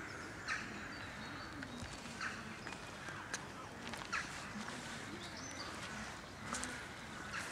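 Outdoor ambience with birds calling in short chirps scattered through it, and faint voices far off.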